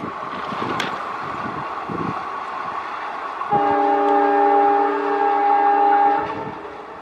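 Locomotive horn sounding one long blast of several notes at once, starting about three and a half seconds in and lasting nearly three seconds. Under it runs the rumble and clatter of the moving train.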